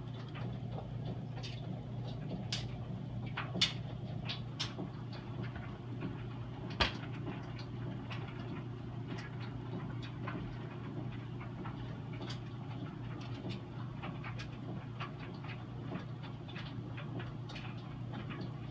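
Maytag Maxima MED6000XR2 dryer running with a steady low hum and irregular sharp clicks and ticks. The owner puts the noise down to the blower wheel vibrating from a crack in its helicoil housing.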